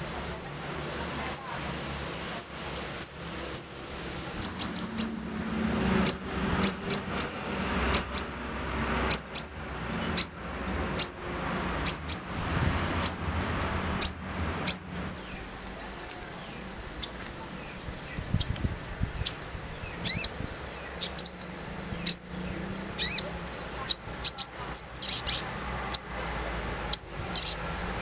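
Sogon bird calling with harsh, sharp high chips, repeated one to three a second and bunched into quick rattling runs in places: the rough 'shooting' call that keepers use to provoke a sogon into singing.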